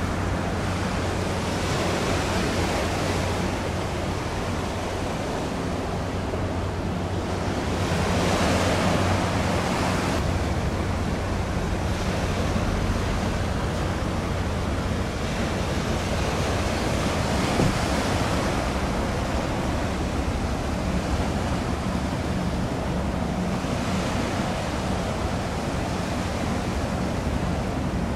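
Wind buffeting the microphone over waves washing at the shoreline, a steady rush that swells every few seconds, with a faint low steady hum underneath.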